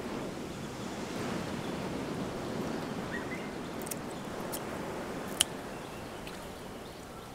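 Scissors snipping sardines as they are cleaned: three sharp snips in the second half, over a steady hiss of outdoor background noise.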